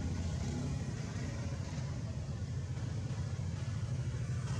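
A steady low rumble, with no monkey calls or other distinct sounds standing out.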